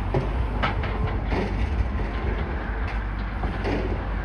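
Demolition machinery at work: a steady low rumble with several irregular knocks and clanks, as of debris or metal being moved.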